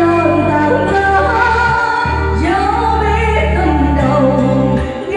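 A ballad's backing music with singing, the voice holding long sustained notes over a steady bass.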